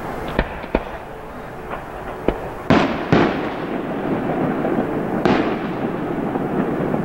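Aerial fireworks bursting overhead: a string of sharp bangs, the loudest two close together a little before the middle and another about five seconds in, each trailing off in an echoing rumble.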